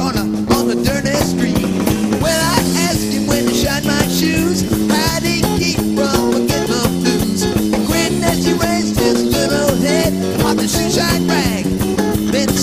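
Rock band playing an instrumental passage: an electric bass walking a stepping line under a busy drum-kit beat, with guitar over it.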